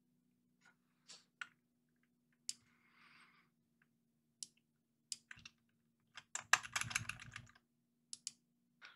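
Computer keyboard keystrokes: scattered single key presses, then a quick run of keys about six and a half seconds in.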